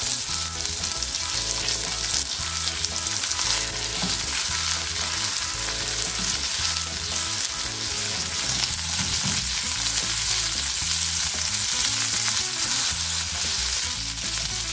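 Chicken mince kababs shallow-frying in a tablespoon of oil in an open pan, a steady sizzle.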